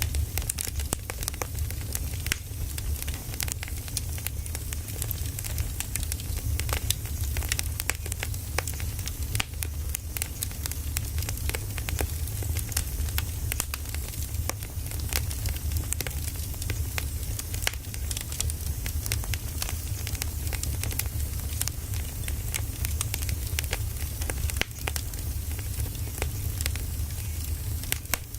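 Firewood burning, with frequent irregular pops and crackles over a steady low rumble.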